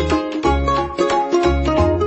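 Background music: quick, sharply struck notes over a bass line that changes about every half second.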